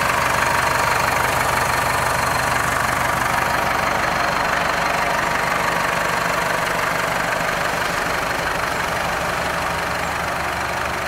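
McCormick CX95 tractor's diesel engine idling steadily, growing slightly fainter toward the end.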